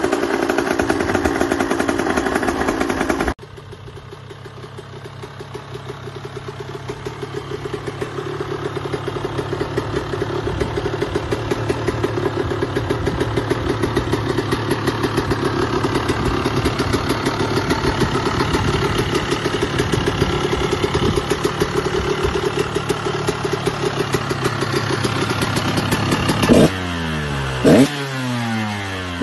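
Two-stroke motocross bike engines running. A first bike runs loudly and is cut off after about three seconds. A KTM then idles with a rapid, even firing beat that slowly grows louder, and near the end gives two sharp throttle blips that rise quickly in pitch.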